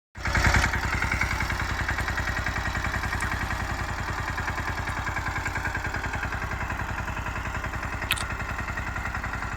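Tractor engine running steadily, with a fast, even chugging pulse.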